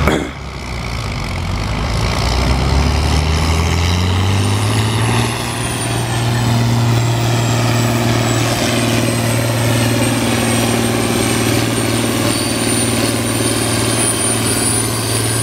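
John Deere diesel farm tractor under full load, pulling a weight-transfer sled. The engine note climbs over the first few seconds, then holds steady and loud, with a thin high whine above it.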